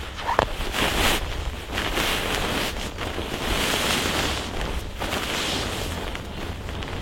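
Wind gusting over the microphone: a rushing noise that swells and eases, with a low rumble, and a few short knocks about a second in.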